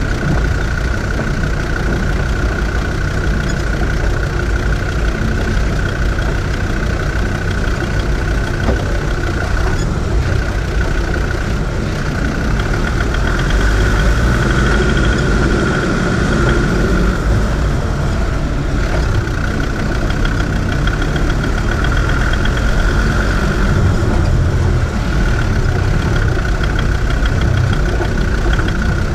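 Land Rover Discovery 4WD engine running steadily as the vehicle drives slowly along a dirt track, with a steady high whine over the low rumble. It grows a little louder and noisier for a few seconds midway while the vehicle goes through a shallow puddle.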